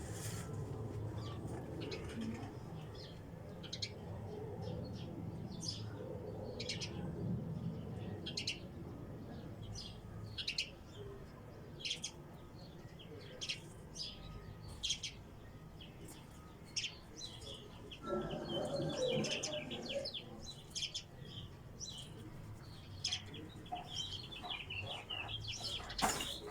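Birds chirping in short, separate chirps about once a second over a low steady hum.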